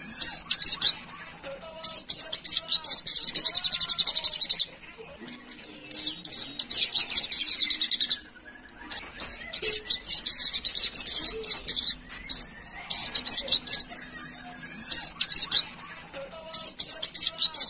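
Olive-backed sunbird (sogok ontong) singing: fast, high-pitched twittering trills in phrases of one to three seconds, separated by short pauses.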